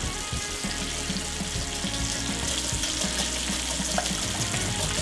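Bacon sizzling in a frying pan, a steady hiss, with the light clicking of a wire whisk beating eggs in a glass bowl.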